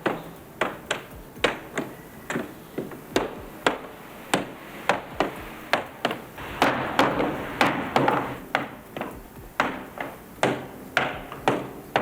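Hammer blows driving loosened iron hoops back onto a wooden wine barrel: a steady run of sharp strikes about two a second, a few louder ones a little past the middle.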